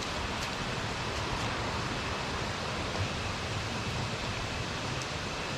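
Steady, even rushing outdoor noise with no distinct events, like flowing water or wind, with a faint steady high hum through it.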